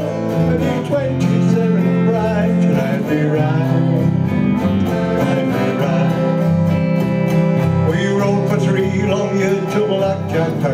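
Live band playing an instrumental break in a country-rock song: strummed acoustic guitar over electric bass, with an electric guitar, at a steady strumming rhythm.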